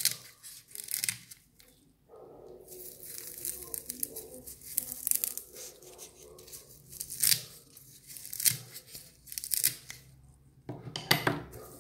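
Shears cutting through dry coconut husk: a dozen or so crisp, irregular snips with the fibres ripping as they part.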